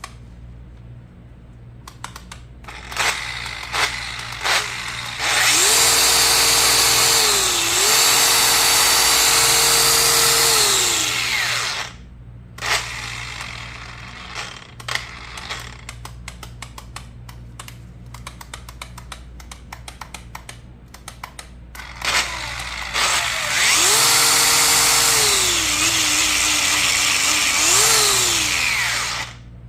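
DeWalt FlexVolt cordless grinder with a fault: it starts only when the wheel is spun by hand. Its switch clicks repeatedly without the motor starting, and twice the motor comes up and runs with a steady whine for about six seconds, dipping in speed partway, before spinning down with a falling whine.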